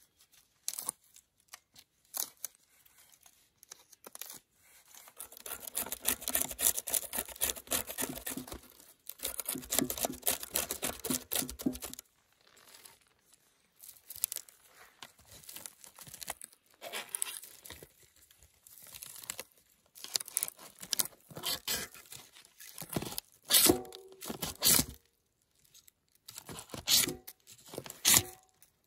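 Birch bark being scraped and shredded into tinder with a blade: dry rasping and tearing strokes. A dense run of scraping comes a few seconds in, followed by shorter, separate strokes, a few of them sharper and louder near the end.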